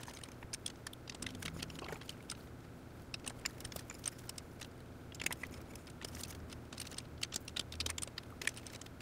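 Faint, irregular small metallic clicks and ticks from a hand driver spinning bolts down into the aluminium crankcase cover of a Honda TRX400EX engine, snugging them in a crisscross pattern before torquing.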